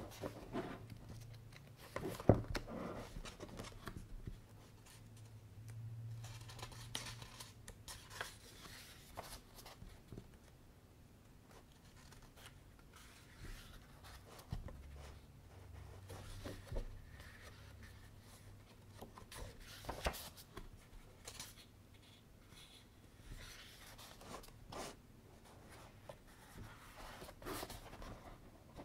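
Pages of a paperback manga volume being turned by hand: soft paper rustles and swishes with scattered light clicks, the sharpest about two seconds in.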